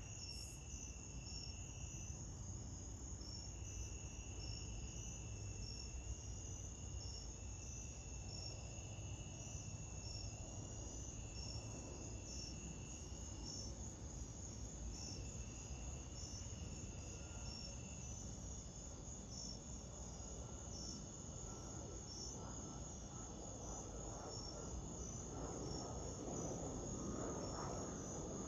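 Insects chirping steadily in a high, pulsing trill, with a lower trill that comes and goes. Under them the low rumble of a twin-engine jet airliner's engines grows louder over the last several seconds as it approaches overhead.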